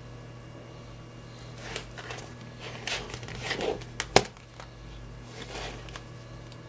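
Two smartphones handled by hand: rustling and rubbing as they are picked up and turned, then a sharp click just past four seconds in as the cases knock together, and a softer rub a little later. A steady low hum runs underneath.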